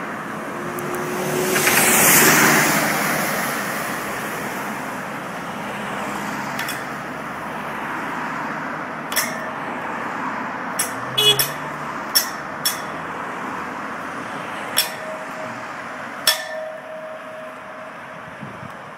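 A whip cracking sharply about nine times, some cracks in quick pairs, over steady road traffic. A vehicle passes loudly a couple of seconds in.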